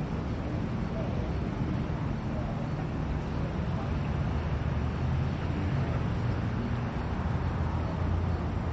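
Steady low rumble of background noise, with a faint steady high-pitched whine above it.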